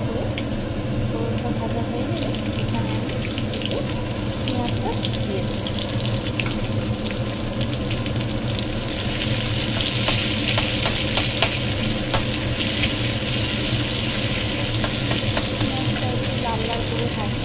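Whole spices (bay leaf, panch phoron, cumin) crackle in hot oil in an aluminium kadai. About halfway through, sliced onions go in and a louder, steady sizzle starts, with a metal spatula clicking against the pan as they are stirred. A steady low hum runs underneath.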